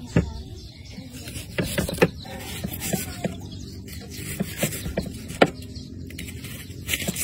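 Knife slicing a peeled onion into rings on a thick wooden chopping block, each cut ending in a short knock of the blade on the wood, at an uneven pace of a few cuts a second.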